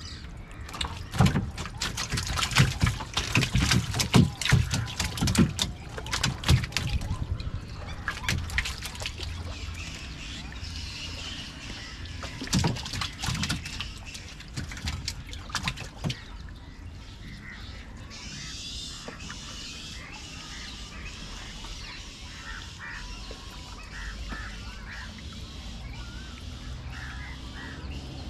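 Sharp knocks, clatters and splashes as a fishing net is hauled hand over hand into a small outrigger canoe and fish are picked out of it; these are loudest in the first few seconds and die away about halfway through. In the second half, waterbirds call repeatedly in short notes and glides over a steady background.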